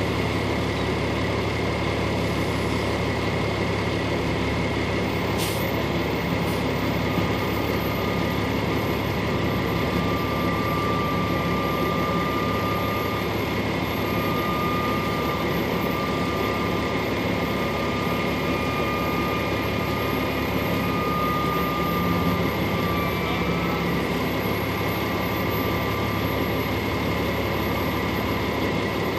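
A vehicle's engine runs steadily as it drives slowly along, heard from inside the cab, with a constant low hum and a faint high whine over it.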